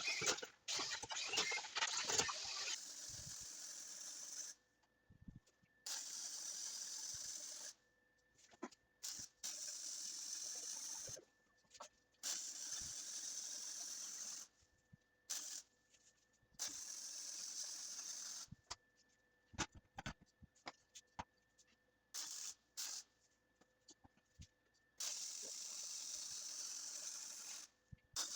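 Faint shop sounds in short chopped segments: a steady hiss that starts and stops abruptly again and again, with scattered sharp clicks and knocks from hand work.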